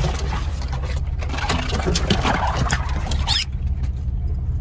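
Jeep Wrangler engine running low and steady as it crawls, with branches scraping and crackling along the body and soft top, and a short high squeal of a branch dragging across it about three seconds in. The scraping eases off for the last second.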